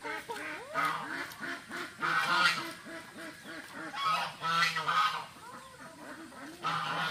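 A flock of domestic ducks quacking in rapid runs of calls, with louder bursts about two, four and seven seconds in.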